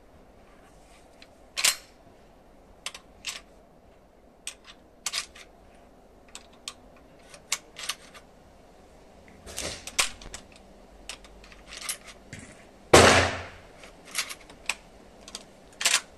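Sharp metallic clicks of cartridges being loaded into a Winchester 1873 lever-action rifle, irregularly spaced, with one loud gunshot with a booming, echoing tail about thirteen seconds in.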